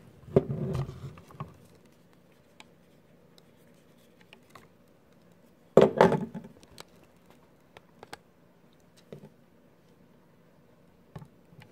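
Plastic Blink security camera and floodlight mount being handled and fitted together by hand: scattered light clicks and scrapes, with a louder short knock about six seconds in.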